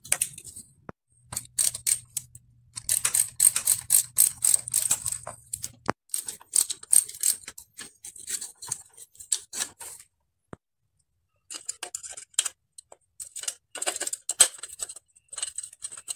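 Metal bicycle parts and hand tools clicking, clinking and rattling in quick runs as a mountain bike's handlebar, stem and fittings are taken off, with a pause of about a second near the ten-second mark.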